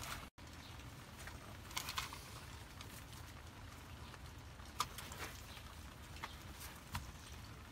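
Light scattered clicks and rubbing as rubber-booted ignition wires are handled and pushed onto a distributor cap, over a faint steady background hiss. There is a brief gap of silence near the start.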